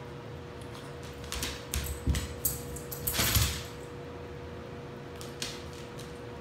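Metal ID tag on a dog's collar jingling in a cluster of clinks and rattles lasting about two seconds, with a couple of dull thumps, as the dog moves about.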